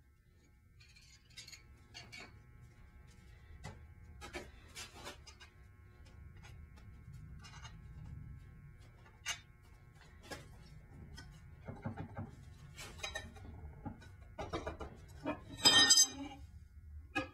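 Steel axle and brake parts clinking and tapping as bolts and a bracket plate come off a rear axle end and are set down on a concrete floor, with one loud, ringing metal clank near the end.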